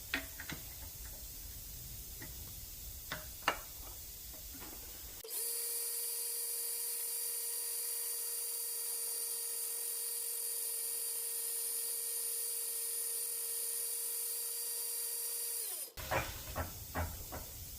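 A few light clicks and taps, then a drill runs steadily for about ten seconds with an even whine, drilling into a cast-iron casting, and stops abruptly; a few more clicks follow near the end.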